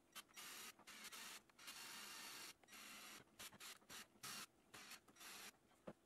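Cordless drill-driver running in a series of short bursts, each a second or less with brief pauses between, driving bolts through a 3D-printed plastic retainer ring into a fan hub.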